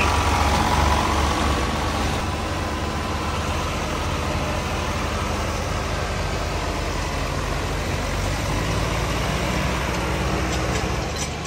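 Diesel engines of a line of tractors (Eicher, Mahindra Arjun Novo and Sonalika) running heavily under load as they pull a tractor stuck in mud. The low engine rumble is steady, loudest at the start and easing slightly after about two seconds.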